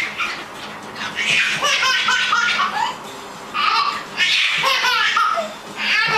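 High-pitched laughter in several bursts with short pauses between.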